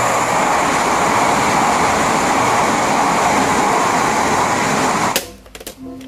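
Toy high-speed train running, a steady rushing noise that stops suddenly about five seconds in.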